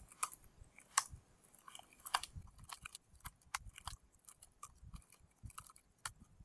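Typing on a computer keyboard: faint, irregular keystroke clicks, several a second, as code is entered.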